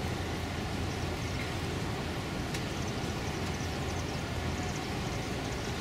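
Steady low rumble of a large container ship's engine passing at a distance, even throughout, with a few faint high ticks above it.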